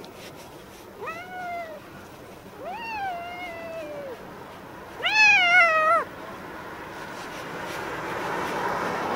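A black-and-white cat meows three times while being brushed. Each meow rises and then falls in pitch; the second is the longest and the third the loudest. A soft hiss builds in the last seconds.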